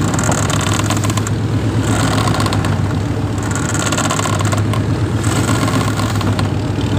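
Boat engine running steadily at a constant pitch, with the rush of wind and sea over it; the hiss swells every couple of seconds.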